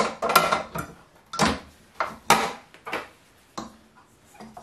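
Stainless-steel stand-mixer bowl and its beater attachment clanking and scraping as they are handled and fitted onto the mixer: about six separate metal knocks, the first a longer scrape.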